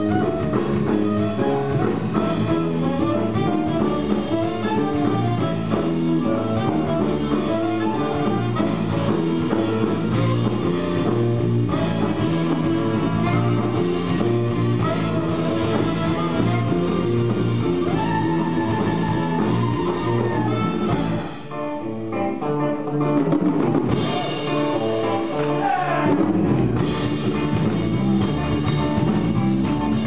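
Live band playing: drum kit with guitars. The music drops away briefly about two-thirds of the way through, then starts up again.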